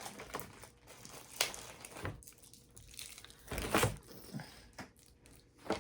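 Plastic snack packaging crinkling and rustling as it is handled and pulled out, in several uneven bursts, the loudest about a second and a half in and again near four seconds in.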